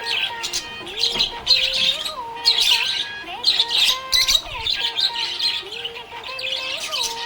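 Budgerigars chirping and chattering busily, quick clusters of high chirps every second or so over a lower warbling line.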